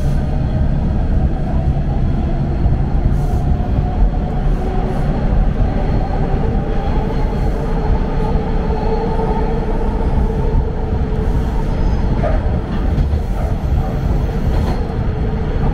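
TTC Line 2 T1 subway car running between stations, heard from inside the car: a steady loud rumble of wheels and running gear with a steady whine over it.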